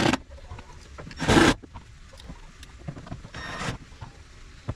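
Milwaukee M12 cordless drill driving screws into plastic interior trim in two short bursts, the first about a second in and louder, the second near three and a half seconds. The screws are only run in far enough to tack the panel in place, not tightened.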